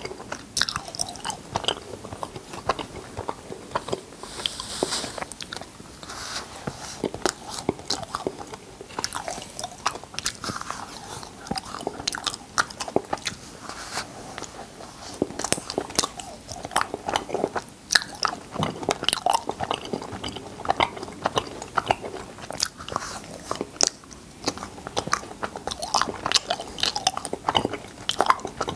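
Close-miked eating of cotton candy: a person's mouth chewing and biting, a dense run of short mouth clicks and smacks.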